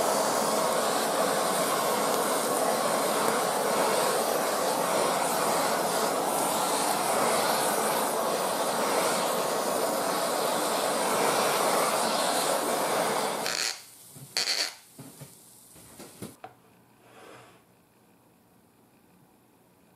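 Handheld gas kitchen torch burning with a steady hiss as it sears sauce-glazed eel fillets. It cuts off suddenly about two-thirds of the way through, followed by a few light clatters and then near silence.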